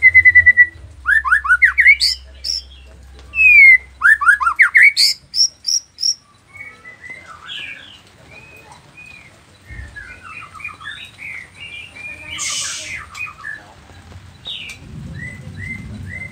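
Nias white-rumped shama (murai batu) singing its varied, mimicry-filled song. It opens with loud falling whistles and fast runs of rising notes for about six seconds, then drops to a softer run of short chirps and twitters.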